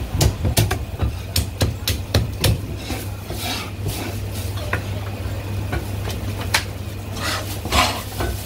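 Meat cleaver chopping cooked chicken on a thick wooden chopping block: a run of sharp chops, closely spaced for the first couple of seconds, then more spread out, with a few more near the end. A steady low hum runs underneath.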